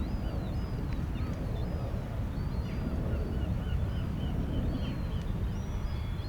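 Many birds giving short, high chirping calls over and over, above a steady low rumble of outdoor seafront ambience.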